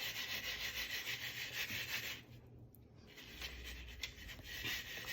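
Popped popcorn rustling and tumbling in a bowl as the bowl is shaken, for about two seconds, then fainter again after a short pause.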